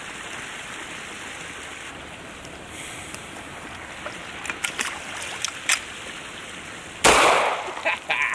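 Steady rush of creek water spilling over a low weir, with a few small clicks as the pistol is handled. About seven seconds in, a Hi-Point .40 S&W pistol fouled with pond scum fires a single loud shot, which shows that it still fires.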